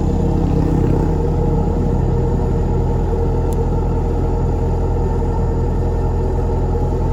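Kubota DC-93 combine harvester's diesel engine and harvesting machinery running steadily under load.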